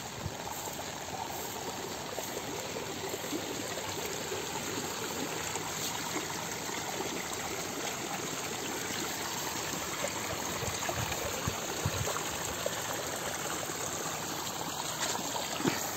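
Small muddy stream running steadily through grass, an even rushing of water.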